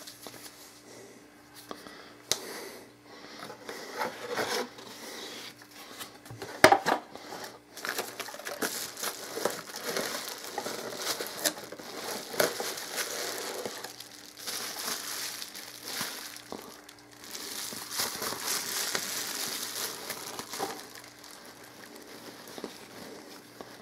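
Rustling and crinkling of camera packaging handled by hand: paper inserts, then plastic bag and bubble wrap around the camera lifted from the cardboard box, with scattered light knocks and one sharper clack a few seconds in. A faint steady hum lies underneath.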